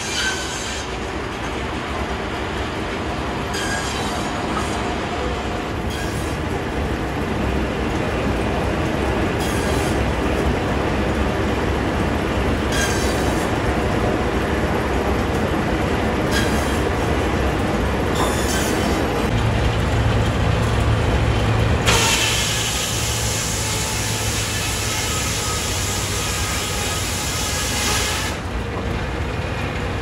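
Sawmill machinery running with a steady rumble and sharp clanks every few seconds from the log carriage and log handling. About twenty-two seconds in, the saw cuts through a log: a loud, even hiss that lasts about six seconds.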